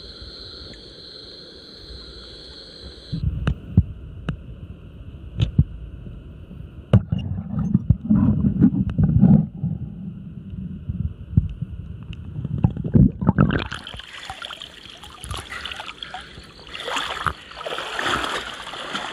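Night insects and frogs call steadily for about three seconds. Then the sound goes muffled as it is heard from a camera held underwater in a river: low rumbling with sharp knocks and thumps, then a rushing, bubbling water noise in the last few seconds.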